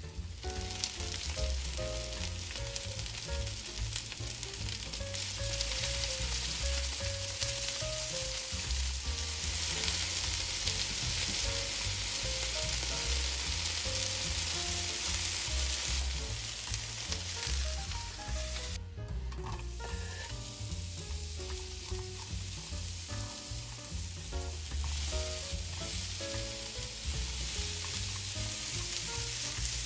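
Chicken pieces sizzling as they fry in oil in a non-stick frying pan, turned now and then with wooden chopsticks. After a short break about two-thirds through, sliced bell peppers and onion sizzle as they are stir-fried.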